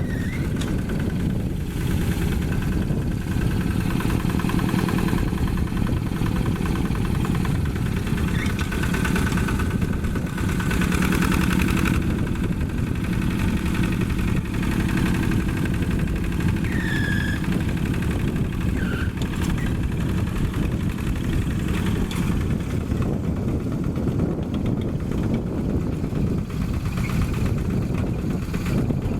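Single-cylinder Yanmar diesel engine of a Quick G1000 two-wheel hand tractor running steadily, a little louder for a couple of seconds near the middle.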